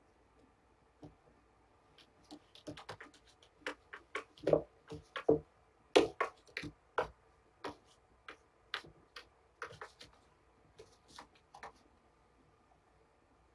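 Handling noises while a kitten is syringe-fed on a towel-covered lap: irregular small clicks and taps, a few louder ones between about four and seven seconds in, then sparser.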